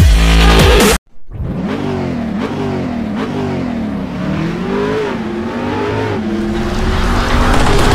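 Car engine revving and accelerating, its pitch rising and dropping several times, then climbing slowly and steadily near the end. Loud electronic dance music plays for the first second and cuts off abruptly.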